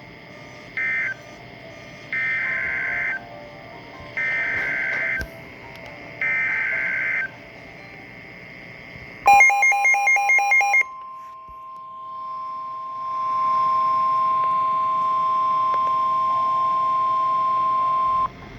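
NOAA Weather Radio EAS alert tones. The last short end-of-message data burst comes first, then three one-second SAME header bursts of warbling digital data tones opening a new tornado warning. About nine seconds in comes a short loud run of rapid beeping, with a steady single-pitch warning alarm tone, about 1 kHz, starting under it and holding for roughly nine seconds.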